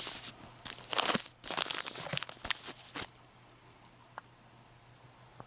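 Crinkling of a Honey Stinger Waffle's wrapper being handled, in irregular bursts over the first three seconds, then stopping apart from a single small tick.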